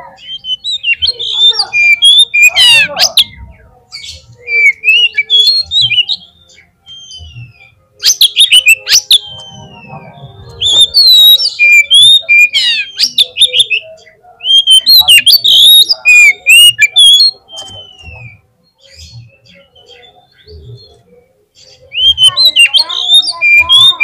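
Oriental magpie-robin (kacer) in full song: loud phrases of varied whistles, chirps and fast rattling notes, separated by short pauses, with a quieter stretch of a few seconds past the middle.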